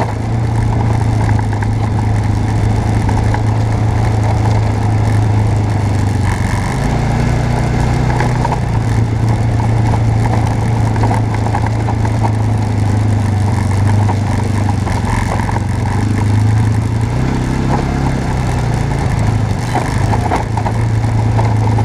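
Off-road vehicle engine running steadily while driving along a dirt trail, its pitch shifting up and down a couple of times as the revs change.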